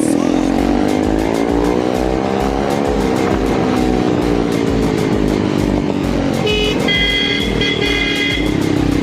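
Honda SP 125 motorcycle's single-cylinder engine revving up over about three seconds, then easing back down and settling.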